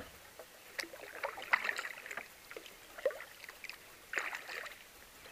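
Kayak paddle working in calm water: a few irregular splashes and drips as the blades dip and lift.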